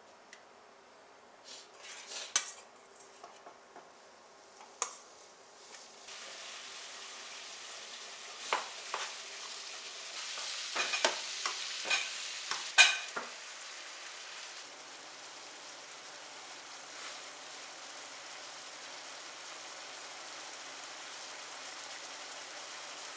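A few light clicks of a utensil, then about six seconds in a steady sizzle starts as food goes into a hot pan. A utensil scrapes and knocks against the pan several times while the food is stirred, and the sizzle carries on.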